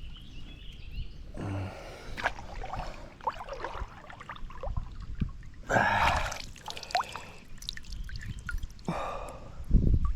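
Water splashing and dripping around a hooked fish as it is brought in and handled, in a few separate bursts.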